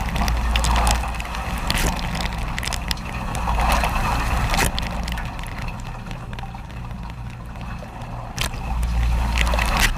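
Dishwasher running: a steady low pump hum under water spraying and sloshing inside the tub, swelling and fading, with scattered sharp clicks.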